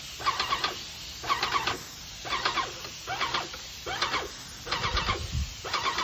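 Airless paint sprayer's pump running while the gun sprays, its strokes coming as short, stuttering squeals about once a second.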